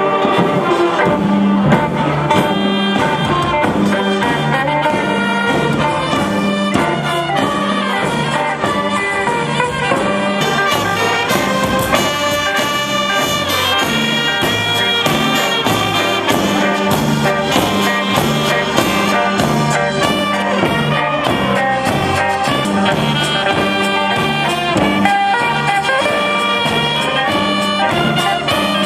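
A brass band of saxophones, trumpets and sousaphones with a bass drum playing a tune. The sousaphones keep up a repeating two-note bass line under the melody.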